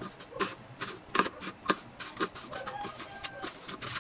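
Breadcrumbs crackling and crunching in irregular little clicks as a slice of luncheon meat is pressed and turned in them by hand on a ceramic plate.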